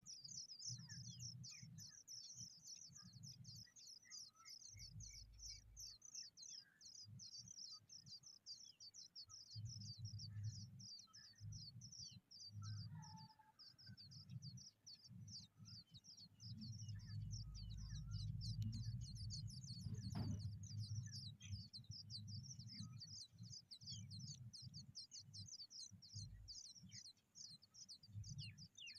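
Small birds chirping in a continuous fast, high-pitched chatter, faint overall, with a low rumble coming and going underneath.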